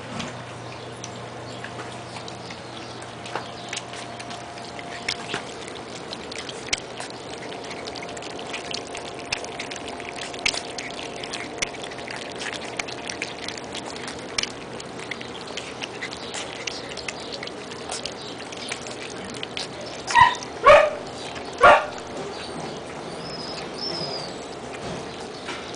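Four-week-old husky puppies eating wet food from a metal frying pan, with a steady run of small wet lapping and chewing clicks. About twenty seconds in, a puppy gives three short, loud yelps.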